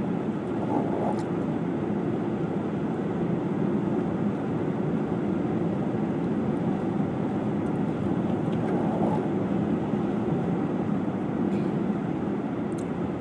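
Car driving on a snow-covered, icy highway, heard from inside the cabin: a steady rumble of engine and tyres on the road.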